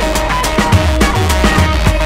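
Upbeat music with a steady drum beat, about two beats a second, each beat carrying a deep bass note that slides down in pitch.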